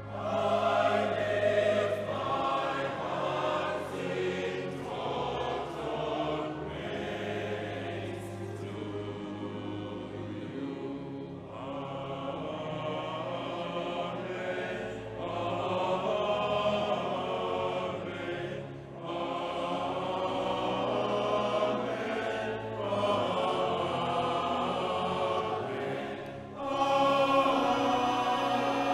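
Choir singing, in long phrases with short breaks between them.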